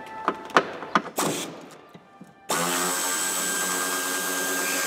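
A few sharp clicks and knocks, then about halfway through a power drill-driver starts and runs at a steady pitch, unscrewing a bolt of the fuel filter bracket.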